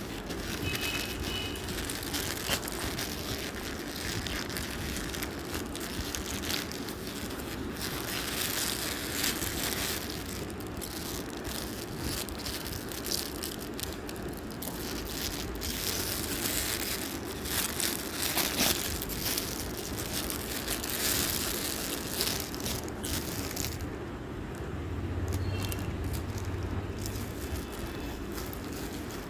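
Plastic parcel packaging crinkling and rustling as it is handled and opened, with many scattered short clicks and crackles.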